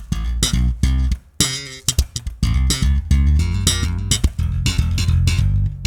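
Tagima TJB-4 four-string electric bass with a deOliveira preamp installed, played slap style. A fast run of percussive thumped and popped notes over a strong, deep low end.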